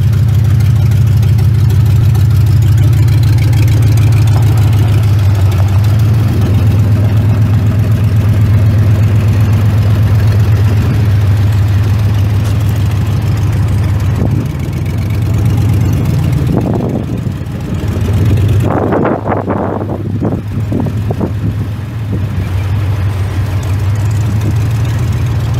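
A 2002 Chevrolet Silverado 1500's 5.3-litre V8 idling steadily and loud, with a muffler that needs replacing. About two-thirds of the way in there is a few seconds of irregular rushing noise.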